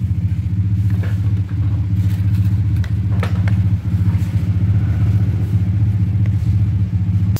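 Small Maruyama brush cutter engine running steadily, with a few light clicks, then cutting off abruptly.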